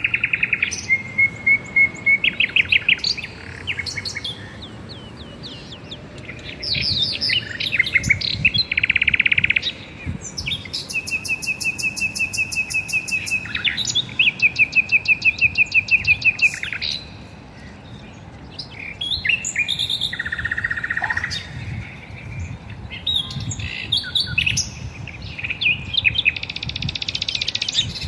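Several garden birds singing and chirping, in fast runs of repeated notes and trills, one bird's song overlapping another's.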